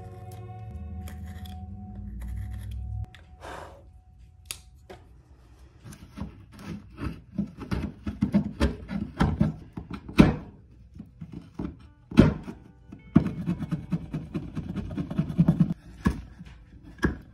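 Background music that stops about three seconds in, then a hand-held wood chisel paring and cutting at a small wooden piece: bursts of quick, short scraping strokes and sharp knocks.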